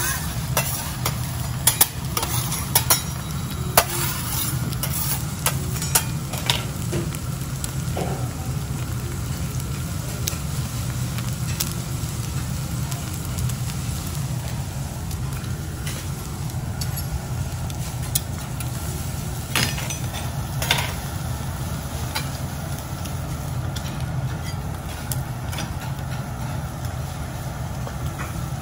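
Wagyu beef searing on a teppanyaki griddle over a steady low hum, with metal spatulas clicking and scraping on the steel plate, several times in the first seven seconds and again around twenty seconds in.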